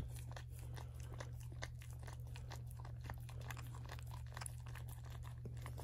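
A whelping cocker spaniel licking and nibbling, making irregular wet clicks and smacks, over a steady low hum.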